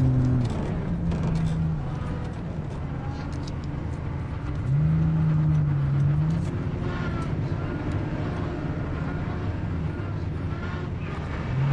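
Car running, a steady engine and road noise. A low engine drone comes and goes and swells louder about five seconds in.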